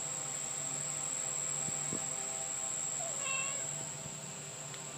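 A kitten gives one short, high-pitched meow about three seconds in, over a steady high whine.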